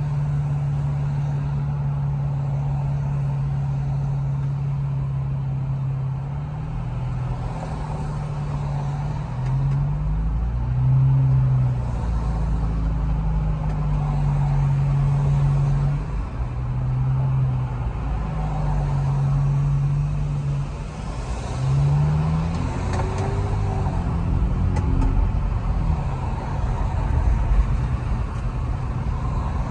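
Infiniti Q50's engine and exhaust drone heard from inside the cabin while driving in traffic. The low note rises and falls several times as the automatic gearbox shifts and the car speeds up and slows, over steady road noise.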